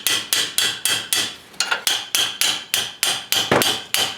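Ratcheting gear wrench being worked back and forth on a brake caliper bracket bolt, giving a rapid, even run of sharp metallic clicks with a brief ring, about three or four a second, with a short pause about a second and a half in.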